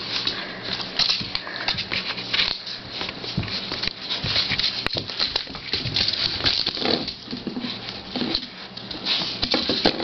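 Pit bull puppies' claws and paws scrabbling on a hard tiled floor as they wrestle, a dense patter of quick taps and clicks, with a couple of short grunts from the puppies in the second half.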